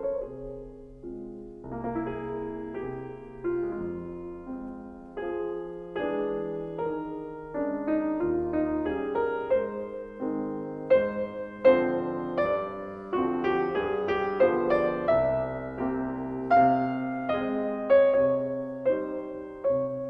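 Background piano music: a piano playing a melody over chords, note after note, each note struck and then fading.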